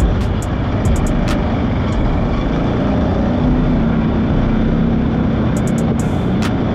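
Off-road vehicle's engine running steadily while riding along a gravel dirt trail, with wind noise on the microphone.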